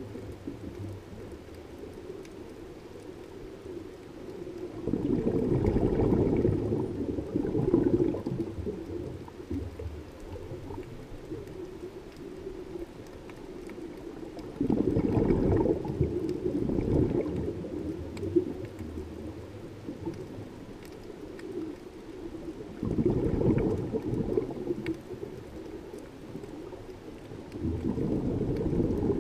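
Scuba diver's regulator breathing recorded underwater: a bubbling rush of exhaled air about every eight to nine seconds, four exhalations in all, with quieter stretches in between.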